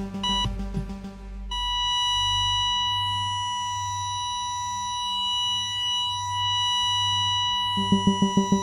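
Heart-monitor sound effect: a short beep, then about a second later a steady, unbroken flatline tone, the signal that the heart has stopped. A soft, slow low pulse runs beneath it, and music with a strong beat comes back in near the end.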